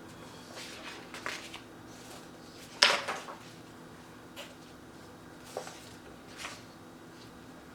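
Paper and photo prints being handled: rustling, then one sharp slap or snap about three seconds in, followed by a few light taps.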